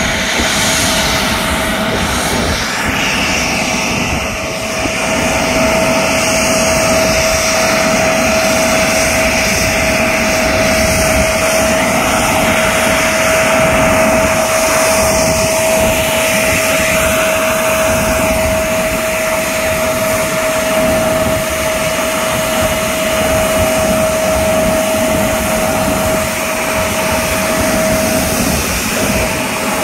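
Embraer 175 regional jet's twin GE CF34-8E turbofan engines running at taxi power as the aircraft rolls in close: loud, steady jet noise with a constant whine held over it.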